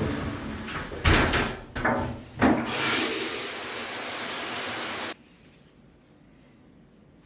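A few knocks and clatters in quick succession, then a steady hiss for about two and a half seconds that cuts off suddenly.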